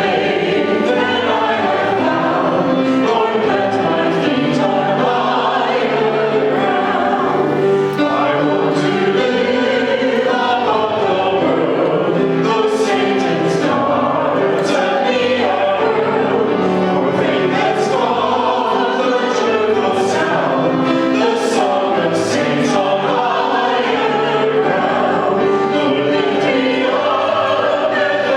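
A choir singing, many voices together at a steady, full level.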